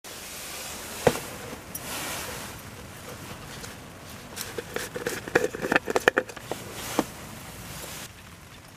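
A plastic packet crinkling and crackling in the hands, in a quick burst of clicks midway, with a sharp knock about a second in and another a little before the end, as of a container set down on a wooden table, while flour is got out for bread dough.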